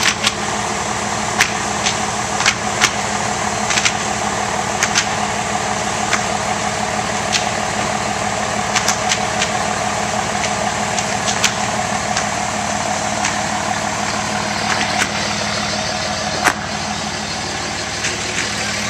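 Fire engine running steadily at the scene, its engine driving the pump that feeds the hoses, with a low even drone. Over it come irregular sharp cracks and pops from the burning house, about one a second.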